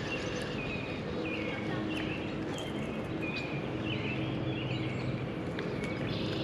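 Birds chirping in short, repeated calls over steady wind noise and a faint low hum.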